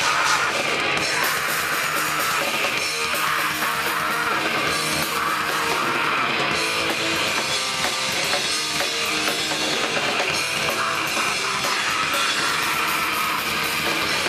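Grindcore/power-violence band playing live: loud distorted guitars over fast, dense drumming.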